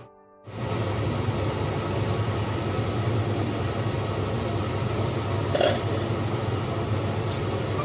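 Steady hum and hiss of an induction cooktop's cooling fan with a pot of stew boiling on it. A short clink comes about five and a half seconds in and a fainter tick near the end.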